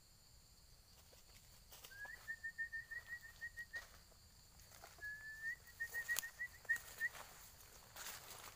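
A small bird calling twice, each call a short rising note followed by a quick string of even chirps, about five a second. Dry rustling and clicks in the leaf litter between and after the calls.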